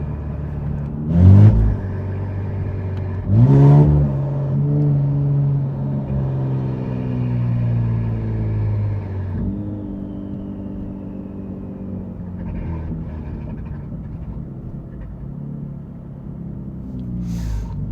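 Infiniti Q60's twin-turbo V6, exhaust dumps open, heard from inside the cabin: two quick rising revs about one and three and a half seconds in, then a steady drone slowly falling in pitch that drops again about halfway through as the driver lets off.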